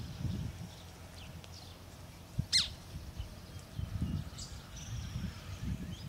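Treeswift calls: a few brief, thin, high chirps and one loud, sharp call about two and a half seconds in, over an uneven low rumble.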